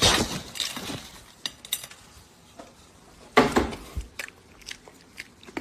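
Kitchen clatter of dishes and utensils knocking together, with one burst of clatter at the start, another about three and a half seconds in, and scattered clicks between.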